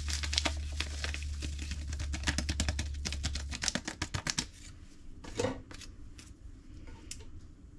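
Packet of Fiesta Ranch dip mix crinkling and rustling rapidly as it is opened and emptied into the pot, for about four seconds, then a few softer handling sounds. A steady low hum underneath stops about three and a half seconds in.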